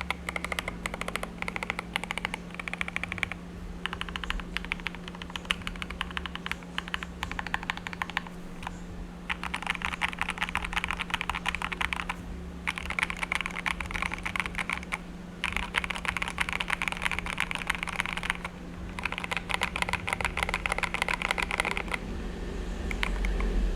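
Fast typing on an Akko 3084B Plus mechanical keyboard with Akko Jelly Pink linear switches and ASA-profile keycaps: dense runs of keystrokes lasting a few seconds each, with brief pauses between them.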